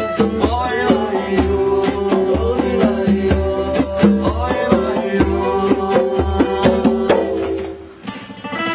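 Folk-style music on acoustic guitar, many quickly plucked and strummed notes; it dips briefly near the end.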